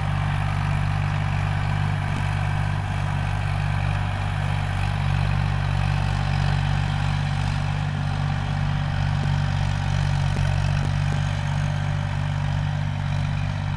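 Farm tractor engine running steadily under load as it plows a dry field.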